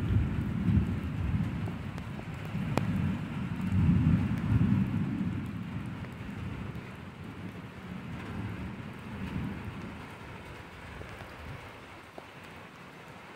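Thunder rumbling low, swelling again about four seconds in and then fading away, over steady rain.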